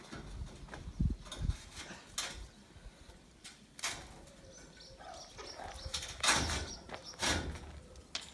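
Scaffold parts being handled and fitted: scattered knocks and clatters, with two heavy thumps about a second in and louder rattling bursts near the end.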